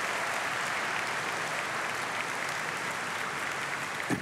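Large audience applauding steadily, easing off slightly, with one brief sharper sound near the end.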